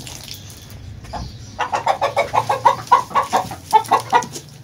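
Desi hen clucking in a fast run of short clucks, about five a second, starting about one and a half seconds in.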